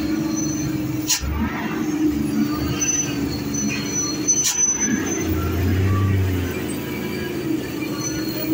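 Heavily loaded Hino truck's diesel engine running steadily at crawling speed, with brief high-pitched squeals and two sharp clicks, about one second and four and a half seconds in.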